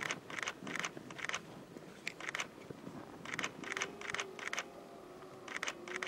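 Still-camera shutter clicking, several shots taken in quick pairs and short runs.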